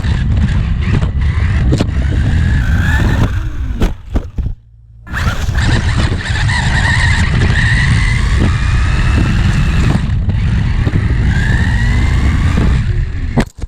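Onboard sound of a Losi Mini B RC buggy being driven: its small electric motor whining up and down in pitch with the throttle over a heavy rumble and clatter of the chassis and tyres on the ground. The noise drops away for about a second near the middle, then picks up again.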